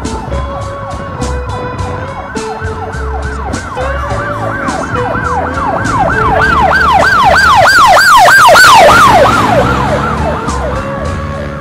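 Background music with a steady drum beat. About four seconds in, a fast rising-and-falling siren wail joins it, about three cycles a second; it swells to its loudest near the middle and fades out before the end.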